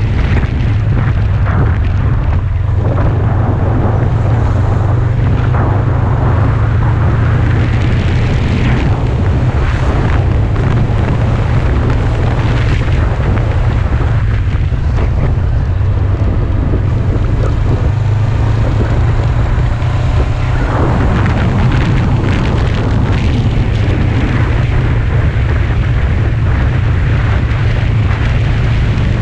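Heavy wind buffeting on the microphone of a camera mounted on a moving sport motorcycle, with the bike's engine running underneath at a steady cruise.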